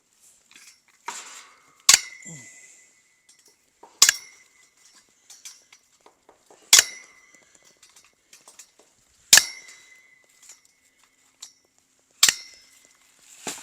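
Steel wire of a welded wire panel being cut through, one rod at a time: five sharp metallic snaps, evenly spaced about two and a half seconds apart, each followed by a brief ringing ping from the cut wire.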